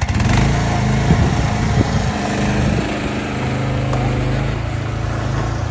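Mini excavator's engine running hard, jumping up in level at the start as the machine works. Its pitch wavers for the first few seconds, then settles into a steady run.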